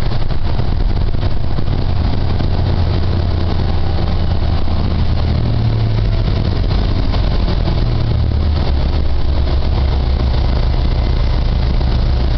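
Cummins ISL9 inline-six diesel of a New Flyer XD40 Xcelsior transit bus, heard from inside the passenger cabin as a steady low drone. Its note shifts slightly lower about eight seconds in.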